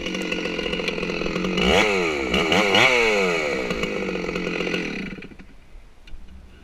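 Stihl 064 two-stroke chainsaw running at high revs, its pitch swinging sharply up and down a few times about two seconds in, then running steadily until it stops about five seconds in.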